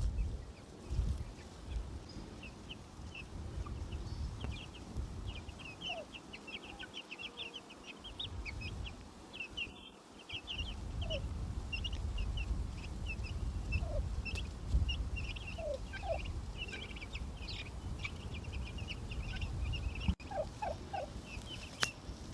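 Turkey poults peeping in a constant stream of quick high chirps, with a few short lower calls from the turkey hens, over a low rumble.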